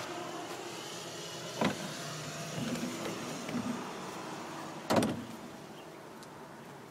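The operator's cab door on a Link-Belt HTC-8675 truck crane sliding open, with a sharp knock about a second and a half in, some rattling, and a louder bang about five seconds in.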